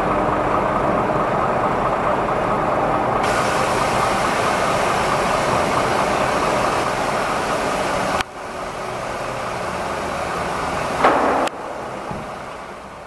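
Liebherr LTM 1100-5.2 mobile crane's diesel engine running steadily under load, driving the hydraulics as the telescopic boom is lowered, with a hiss joining about three seconds in. The sound falls away sharply about eight seconds in, and a short loud noise comes near eleven seconds.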